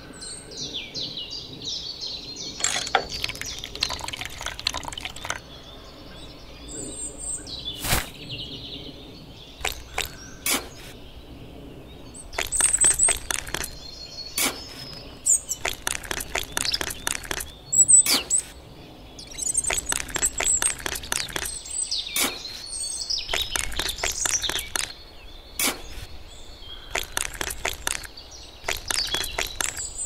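Small metal trowel scraping and tapping wet cement mortar into a crack in a concrete surface, in repeated bursts of short scrapes and clicks. Birds chirp now and then in the background.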